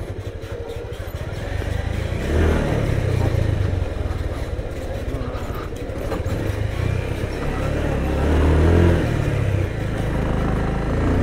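Motorcycle engine running under load with two people aboard on a rough hill track. The revs rise and fall, swelling about two seconds in and again near nine seconds.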